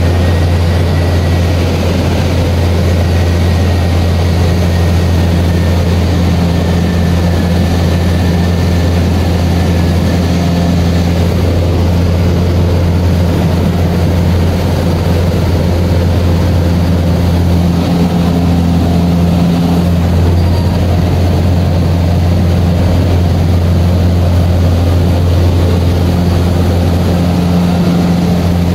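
Engine and propeller of a small high-wing aircraft droning steadily in flight, heard loud from inside the cockpit.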